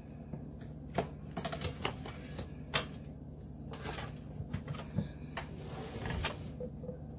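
Packing tape being peeled off an air fryer oven's door: a scattering of irregular sharp crackles and clicks, with a small cluster about one and a half seconds in. A faint steady hum lies underneath.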